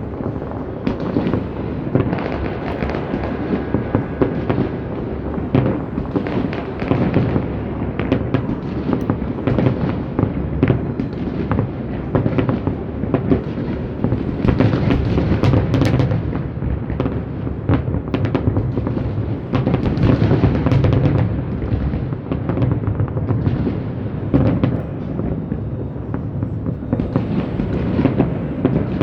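Fireworks bursting continuously in many overlapping shows, a dense run of sharp bangs and crackles over a constant low rumble of booms.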